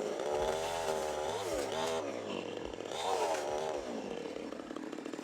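A small engine revving, its pitch rising and falling a few times.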